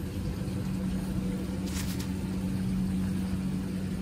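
A steady low mechanical hum holding one pitch, with a brief hiss about two seconds in.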